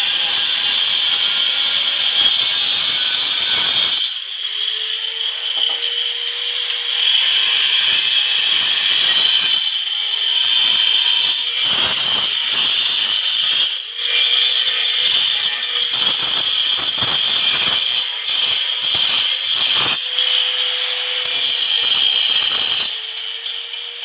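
Handheld angle grinder with a cutting disc grinding into a marble tile: a steady high whine with gritty scraping. The motor's pitch rises briefly several times as the load on the disc changes.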